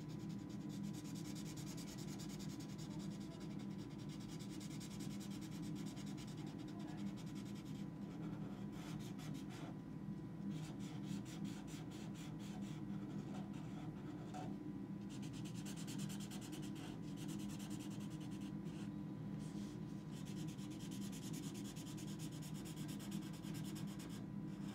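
Black Sharpie permanent marker rubbing and scratching across watercolour paper while the tentacles are filled in. Long runs of strokes are broken by short pauses, with a cluster of quick short strokes around the middle, over a steady low hum.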